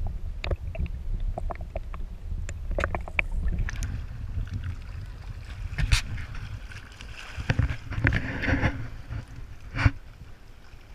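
Camera microphone held under lake water: a muffled low rumble with scattered clicks. It is then lifted out into water lapping and splashing at a rocky shore, with a sharp knock midway and another near the end.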